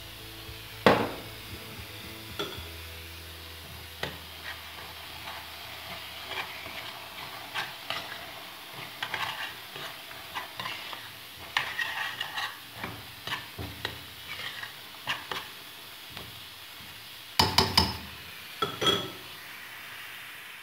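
Onions and raisins in a stainless steel pot being stirred to work in freshly added sugar, with irregular scrapes and knocks of the spoon against the pot. The scrapes come in a loud cluster near the end. Under them is a faint sizzle of the onions cooking.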